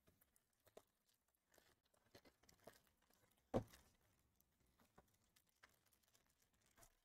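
Faint handling of a trading-card pack: small clicks from the cardboard pack box, then one short, sharp tear of the foil pack wrapper about three and a half seconds in.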